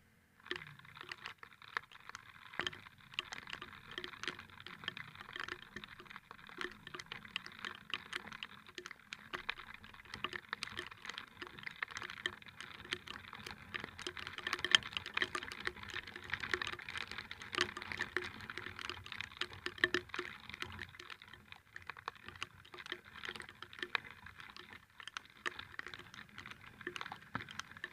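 Rain pattering close to the microphone: a dense, irregular run of sharp ticks, with a faint steady hum underneath.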